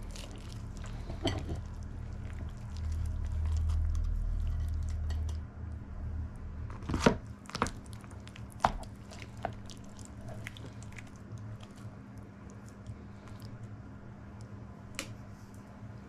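A serving utensil cutting through the crisp shortcrust pastry of a chicken and bacon pie and scooping out the soft creamy filling onto a plate, with crunching and squishing and several sharp clicks of the utensil, most of them between about seven and nine and a half seconds in. A low steady hum lies underneath.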